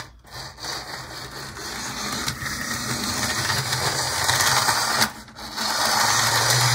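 Lima HO-scale model of a DB V 221 diesel locomotive running on its track, freshly lubricated: a noisy whirring hum from its electric motor and gears. It grows louder over the first few seconds, dips briefly about five seconds in, then picks up again.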